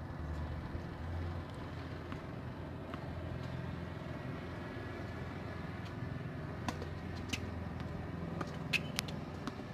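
Outdoor tennis-court ambience: a steady low rumble, with a few sharp knocks of tennis ball impacts in the second half.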